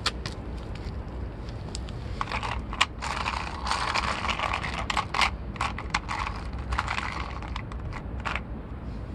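Small plastic toy tanker truck handled and turned around on gritty asphalt: a run of quick clicks and scrapes of its plastic body and wheels on the grit, busiest in the middle. A low steady rumble underneath.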